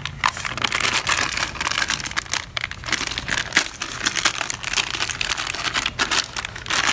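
Clear plastic bag crinkling and rustling as it is handled, with many small irregular crackles and clicks.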